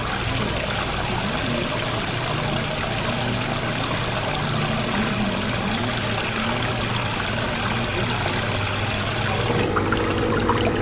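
Steady rushing of running water, cutting off suddenly about a second before the end.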